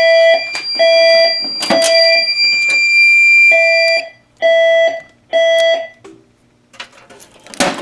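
Fire alarm system's horns sounding the temporal-three evacuation signal: two groups of three short beeps, which then stop. A steady high-pitched alarm tone runs alongside and cuts off about four seconds in; a few clicks and a knock come near the end.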